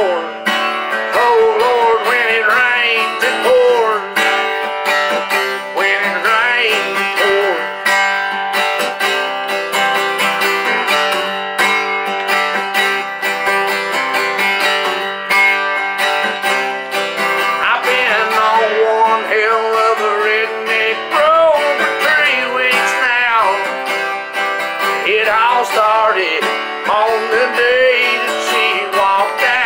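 Acoustic guitar strummed with a man singing along. The voice drops out for a stretch in the middle, leaving the guitar alone, then comes back.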